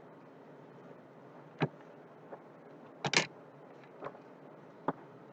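A few light clicks and taps of a bare laptop motherboard being handled and shifted on a silicone work mat, the loudest a quick double click about three seconds in.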